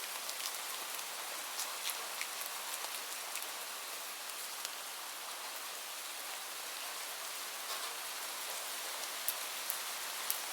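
Steady rain falling: an even hiss with many individual drops ticking sharply against a surface.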